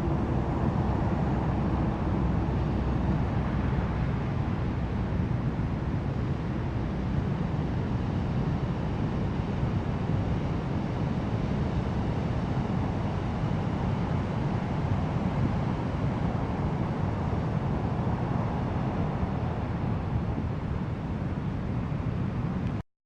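Steady rush of ocean surf with wind on the microphone, cutting off suddenly near the end.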